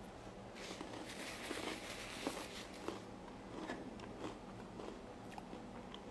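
A person chewing a bite of crumb-coated cheese, with soft crunching and mouth sounds, heaviest in the first half.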